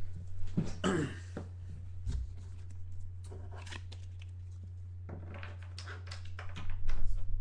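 A short throat-clear near the start. Then, from about five seconds in, crackling and tearing of plastic wrap as a sealed box of trading cards is opened, over a steady electrical hum.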